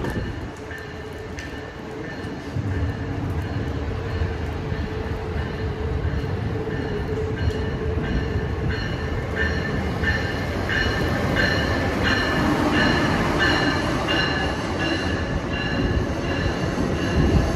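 Amtrak Northeast Regional train pulling into the station, its locomotive and coaches rolling past with a rising rumble. A high ringing tone repeats about every half second over the rumble.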